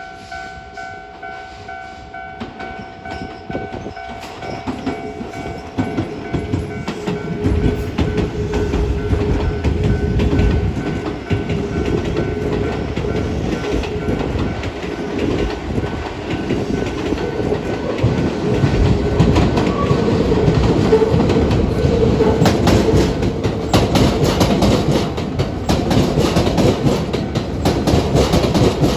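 Hokuso 9100 series electric train passing over a level crossing, its rumble building from about seven seconds in. The wheels clack over rail joints more and more densely toward the end. Steady crossing-alarm tones sound during the first few seconds.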